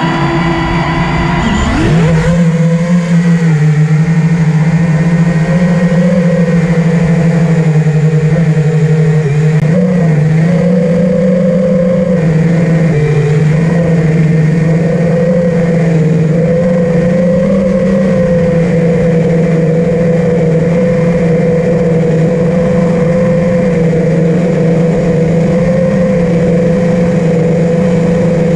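5-inch FPV quadcopter's four Amax 2306 2300kv brushless motors and propellers whining. The pitch climbs over the first two seconds as it throttles up and takes off, then holds as a steady, loud buzz with brief dips and rises as the throttle changes.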